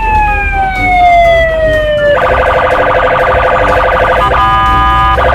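Police patrol car's electronic siren: one long wail falling slowly in pitch, then switching about two seconds in to a steady, harsher tone that cuts off briefly a few times.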